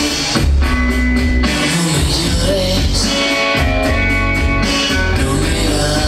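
A song with guitar and drums played loud through a Volkswagen Bora GLI's custom car-audio system, with heavy bass from the trunk subwoofers and Image Dynamics midbass speakers in the open doors.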